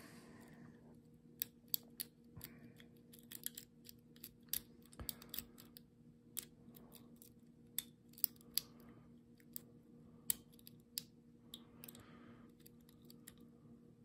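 Worm-style rake pick working the pins of a brass padlock under a tension wrench: faint, irregular small metallic clicks and scrapes.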